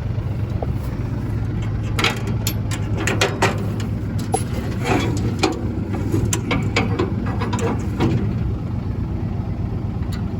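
A vehicle engine running steadily, with many short knocks and rattles over it through the middle of the stretch.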